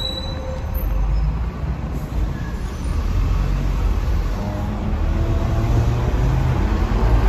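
Street traffic: a steady low rumble of vehicle engines from a coach bus and cars in the road, growing a little louder about a second in.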